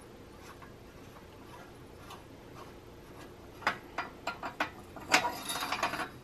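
Metal clinks and clicks of a wrench working a motorcycle exhaust nut at the cylinder head: a few faint ticks, then a run of sharp clicks from about three and a half seconds in and a busier rattle of clinks near the end.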